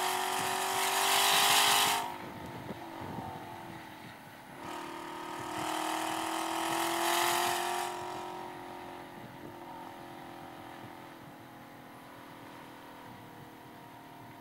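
Chevrolet Camaro ZL1 1LE's supercharged 6.2-litre V8 at high revs in third gear, heard from inside the car. The engine note is loud, then drops away about two seconds in. It swells again from about five seconds, rising slightly in pitch, and falls back to a quieter, steady run after about eight seconds.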